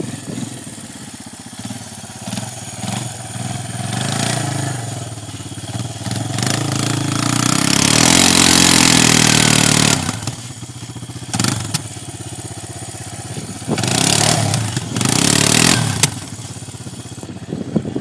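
Quad bike engine revving in repeated bursts under heavy load, with one long, loud rev about halfway through and two more short bursts near the end.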